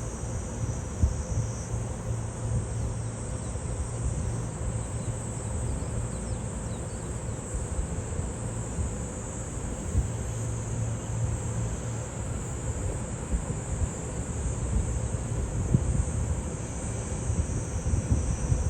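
Steady outdoor background noise: an even, high insect drone over a low steady rumble, with gusts of wind on the microphone growing near the end.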